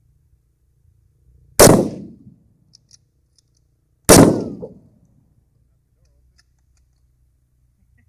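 Two rifle shots from a Mosin-Nagant M91/30 firing 7.62x54R, about two and a half seconds apart, each a sharp crack followed by a short echoing tail.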